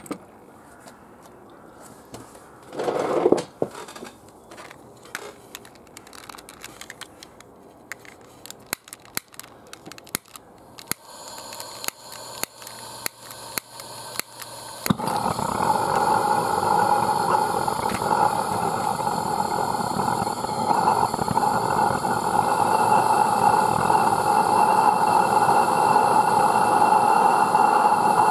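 Gas burner of a 3/4-inch Maxitrak Allchin live-steam traction engine being lit: a knock about three seconds in, then a lighter clicking again and again, faster toward the middle, until the burner catches about halfway through with a sudden, loud, steady roar that keeps going.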